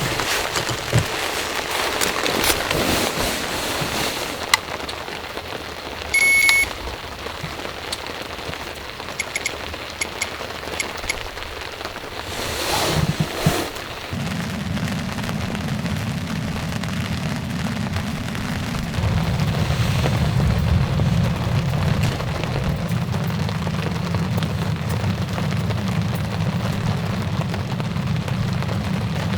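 Steady rain falling, with a short high tone about six seconds in and a low steady rumble that comes in about halfway through and holds.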